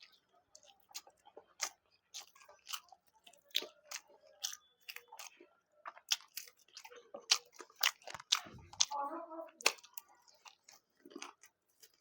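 Close-miked mouth sounds of someone chewing food: irregular, sharp wet smacking clicks, a few a second.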